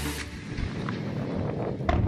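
Fireworks display: a steady low rumble with faint crackling, and one sharp bang near the end as a shell bursts.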